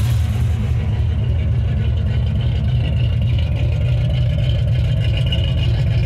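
Cammed Chevy Vortec engine idling steadily on a freshly installed, out-of-the-box Summit Racing Max Performance carburetor during its first run, a continuous even low rumble.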